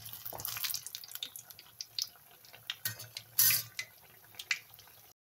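Gram-flour-battered raw plantain fritters (bajji) deep-frying in hot oil: steady sizzling with scattered small pops, and a louder burst about three and a half seconds in.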